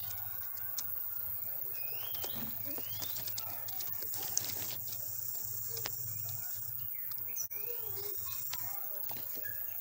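A young bird chirping: a few short rising chirps over a steady low hum, with scattered small clicks.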